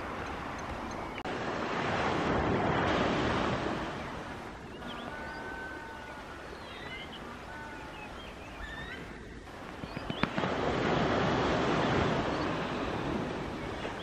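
Surf washing onto the shore in two long swells, about a second in and again about ten seconds in. In the quieter stretch between them come faint, short, high chirping bird calls.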